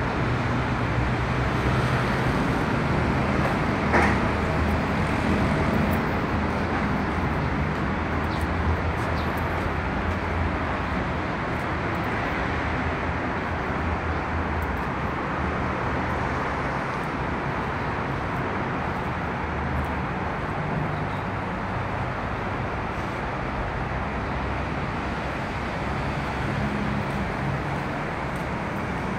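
Steady background noise with a low hum running underneath, and a single sharp knock about four seconds in.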